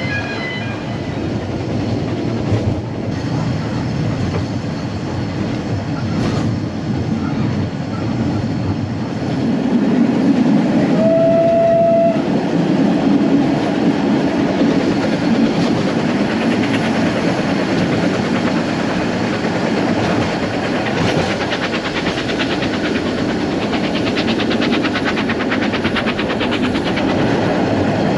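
A narrow-gauge steam train running, with a steady rumble and rail clatter from the moving carriage, heard partly through an open carriage window. The steam locomotive's whistle sounds once, a single steady note of about a second, about eleven seconds in.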